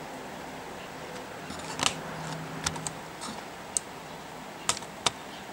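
A handful of short, sharp clicks and ticks, the loudest about two seconds in, over a faint steady hum.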